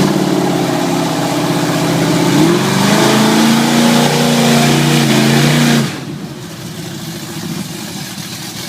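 Off-road vehicle engine revving hard under load. Its pitch climbs about two and a half seconds in and holds high, then drops away suddenly near six seconds in to a quieter steady rumble.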